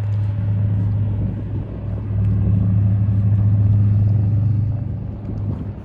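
A motor's steady low drone that grows louder to a peak a few seconds in and then fades, like an engine passing by.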